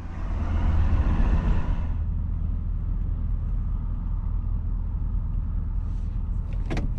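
Vehicle pulling slowly into a dirt lot and stopping, tyre and road noise for about the first two seconds, then the engine idling with a steady low rumble.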